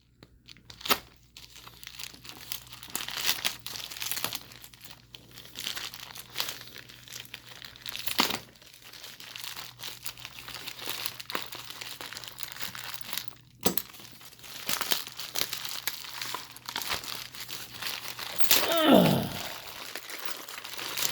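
Wrapping on a package being cut and pulled open by hand: continuous crinkling and tearing with scattered sharp clicks. About two seconds before the end comes a loud, short squeak that slides down in pitch.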